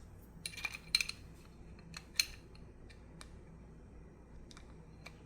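Light metallic clicks and scrapes of a pistol's steel slide and firing pin being worked by hand. A cluster comes about half a second to a second in, a sharp click just after two seconds, then a few fainter clicks.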